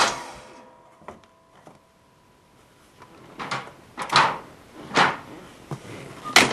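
A short engine run dies away at the very start, then after a quiet pause come four sharp clunks, like objects being knocked about or moved.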